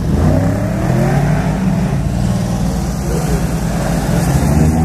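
Sports cars rolling past at low speed in a line, engines running, with one engine revving up in a rising sweep near the start.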